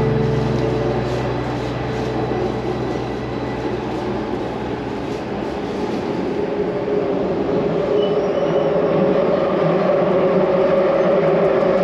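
Barcelona Metro Line 2 train running through a tunnel, heard from inside the passenger car: a steady rumble and rush, with a motor whine that grows louder and rises slightly in pitch in the second half.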